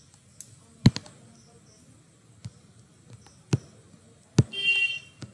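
A series of about six sharp clicks and knocks, spread out and irregular, the loudest about a second in, from handling the computer while the digital whiteboard is zoomed and scrolled. A brief high squeaky tone sounds shortly before the end.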